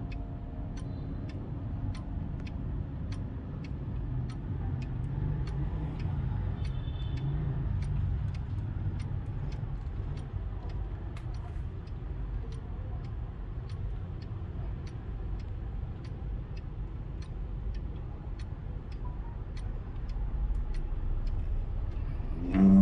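ODO 36 French chiming clock ticking with even, regular ticks over a steady low background rumble, the last chime tones fading out just at the start. A short loud knock comes at the very end.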